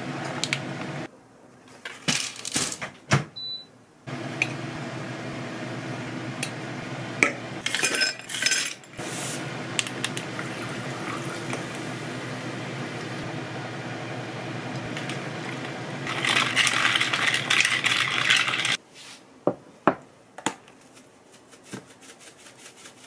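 Dishes and glassware clinking and being handled over a steady low hum, with a drink being poured. A loud fizzing hiss, like soda poured over ice, runs for a few seconds about two-thirds of the way in.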